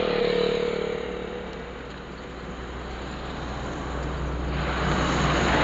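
A motorcycle passes close by at the start, its engine note fading over the first second or so. Steady road noise follows, and a rushing noise swells near the end.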